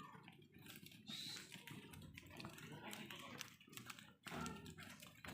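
Faint, irregular clicks and taps, with a short pitched call about four seconds in.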